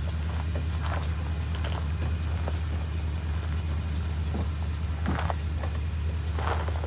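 Lexus GX 470's V8 engine running at a low, steady crawl, with a few short crunches of its tyres on loose rock.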